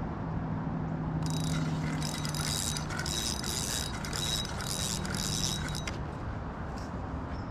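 Fishing reel clicking and whirring in a run of short ratchet-like bursts, about seven of them, while a hooked carp is being fought.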